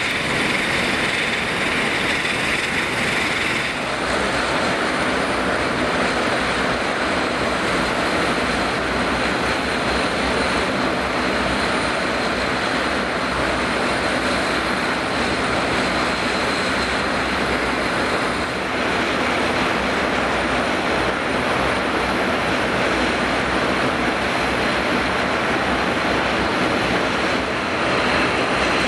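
Jet engines of a Boeing 767-300 airliner running: a loud, steady rush with a thin high whine over it.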